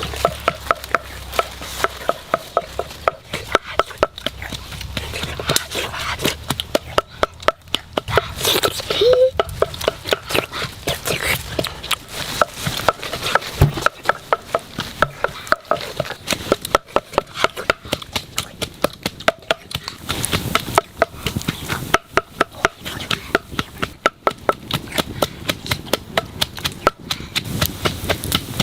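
A cooking utensil striking over and over in quick, regular knocks, about three a second, each with a short metallic ring, over a steady hiss.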